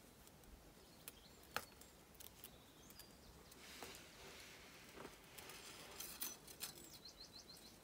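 Near silence with a few faint clicks and a soft rustle of thin copper wire being bent and handled by fingers, and a quick run of faint high ticks near the end.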